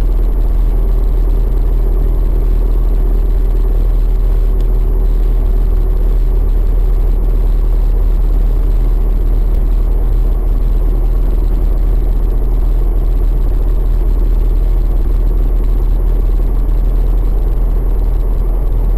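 Steady engine and tyre noise of a car driving on a paved road, heard inside the car, with a deep low rumble and no changes in pace.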